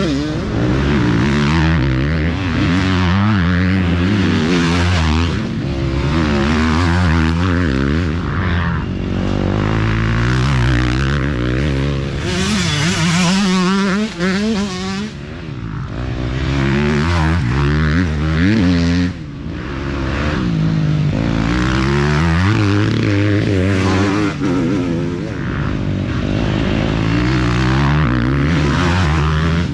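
Several off-road dirt bikes racing past one after another, their engines revving up and down in pitch as the riders work the throttle and shift.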